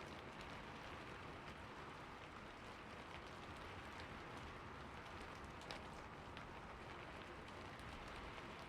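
Steady rainfall: an even hiss of rain with scattered individual drops ticking on a surface, one slightly louder drop near the end.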